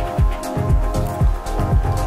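Electronic background music with a steady kick-drum beat, about two beats a second, under held synth chords.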